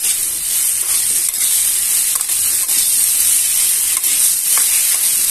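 Cauliflower florets and potato pieces sizzling in oil in a non-stick kadai, being sautéed until browned, with a metal spatula scraping and turning them a few times.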